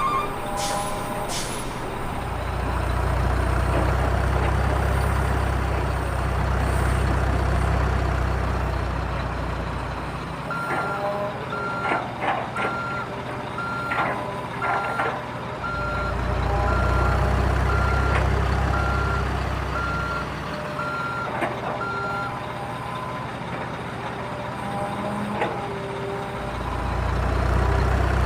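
A heavy vehicle's engine running with a low rumble, and in the middle a reversing alarm beeping steadily, about once a second for some ten seconds, with a few sharp clicks among the beeps.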